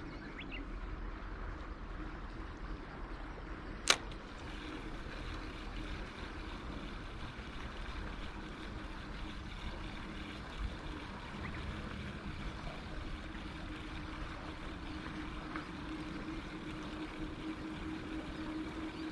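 Seaside ambience: a steady low hum over an even wash of water and wind noise, with one sharp click about four seconds in.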